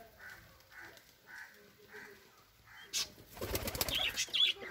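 Birds in a pigeon loft: faint, evenly repeated calls for the first three seconds, then, about three seconds in, a louder flurry of pigeon wing flapping with high chirps of lovebirds over it.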